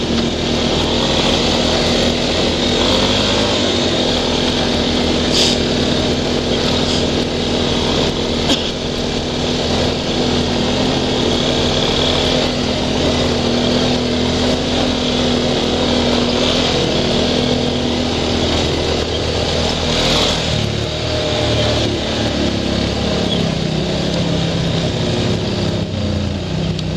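ATV engine running at a steady cruising speed while riding a dirt trail, over an even rushing noise, with a few brief knocks from the ride.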